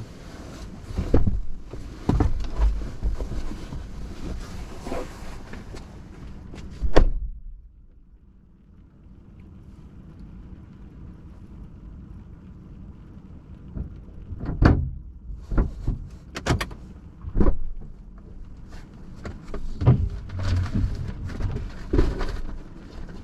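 Car door thumping shut about seven seconds in, after which the hiss of outside noise drops away and it turns quieter. Several more knocks and thumps follow later.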